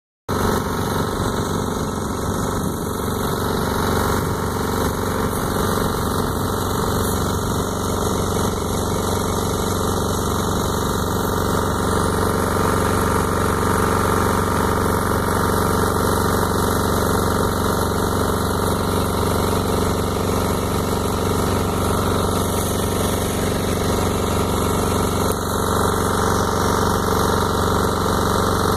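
An engine idling steadily, a constant hum that does not change.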